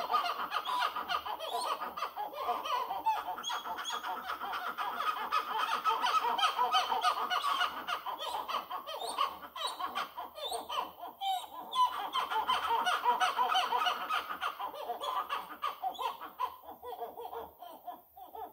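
Howler monkey calling: a long, continuous run of rapid pulses that weakens near the end.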